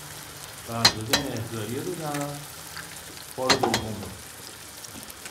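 Eggs sizzling as they fry in a pan on the stove, with a few sharp knocks of a utensil against the pan.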